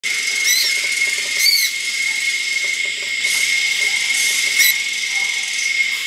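Rainforest insects making a steady high-pitched drone over a dense hiss, with three short high bird chirps, about half a second in, a second later, and near the end.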